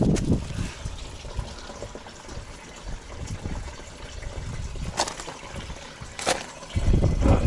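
Warm engine oil pouring in a steady stream from a Mercedes Sprinter's drain hole into a toilet used as a catch pan, coming out fast rather than dribbling. Two sharp knocks about five and six seconds in, and wind rumbling on the microphone near the end.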